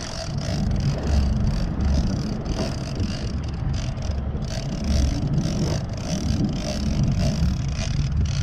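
A boat's motor running, with wind gusting and rumbling on the microphone.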